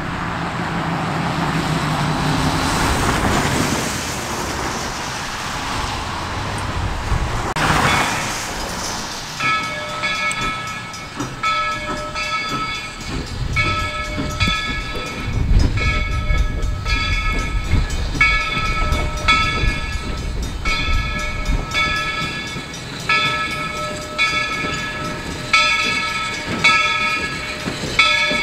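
A train running past: first a rushing noise, then, about a third of the way in, a railroad bell starts ringing steadily about once a second, each strike ringing into the next, over the train's low rumble.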